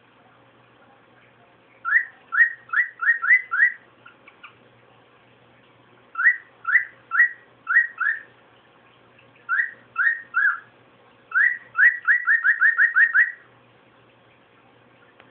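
Grey cockatiel whistling short rising notes in four bursts: about six notes, then five, then three, then a fast run of about ten.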